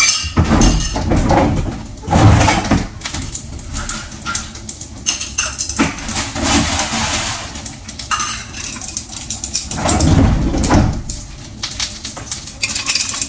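Ice cubes being handled and dropped into iced coffee: a run of knocks, clinks and clatters, loudest about two seconds in and again about ten seconds in.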